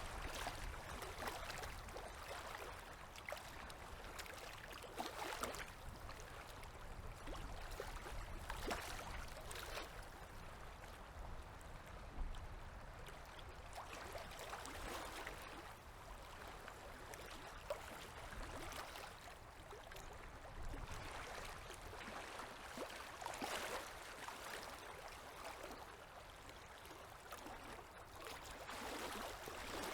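Small river waves lapping at the shore, swelling and falling back every few seconds over a steady, gentle water hiss.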